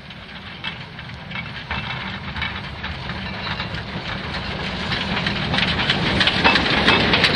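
Saxon IV K narrow-gauge steam locomotive drawing close and passing slowly on snow-covered rails. Steam hisses, with dense crackling and crunching from the wheels and running gear going through the snow, growing louder as it comes alongside.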